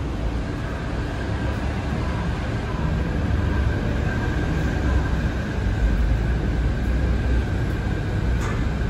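Chiba Urban Monorail suspended car running on its rubber tyres inside the overhead track beam as it comes in overhead: a low rumble with a thin steady whine above it, growing a little louder about three seconds in.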